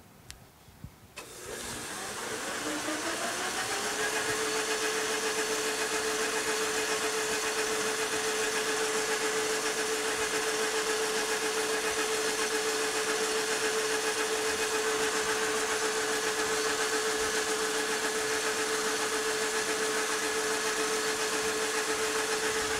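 Metal lathe switched on: the motor and spindle spin up over a couple of seconds, rising in pitch, then run at a steady speed with an even whine.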